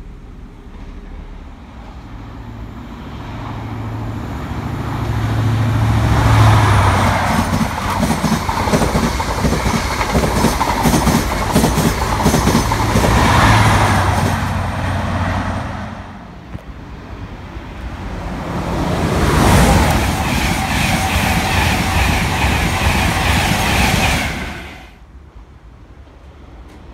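An LNER InterCity 125 High Speed Train passing along the platform: the diesel hum of power car 43306's MTU V16 engine builds as it nears, then the coaches clatter over the rail joints and the second power car's hum passes with them. After a brief dip, a second stretch of loud rushing noise cuts off suddenly near the end.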